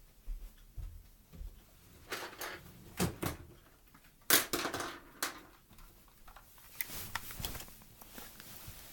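Scattered knocks, bumps and rustles of an object being fetched and handled, the loudest knock about four seconds in.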